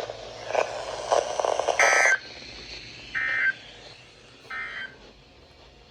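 Three short warbling data bursts from NOAA Weather Radio, a little over a second apart, the first louder than the other two: the SAME end-of-message code that closes the Required Weekly Test.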